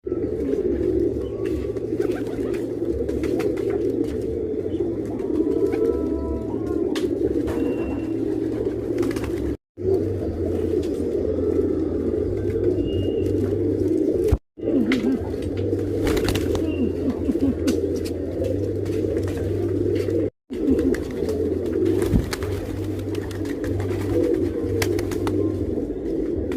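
Domestic pigeons cooing continuously, several voices overlapping into a steady low murmur, broken off by three brief silent gaps.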